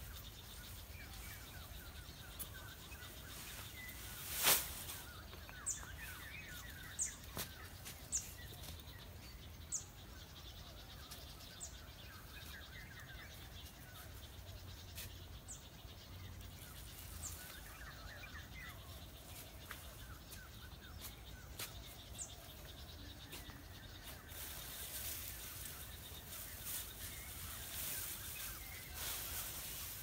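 Outdoor ambience with birds twittering and thin, short high chirps every second or two. There is a single sharp snap about four and a half seconds in. A rustling hiss of dry grass grows louder near the end.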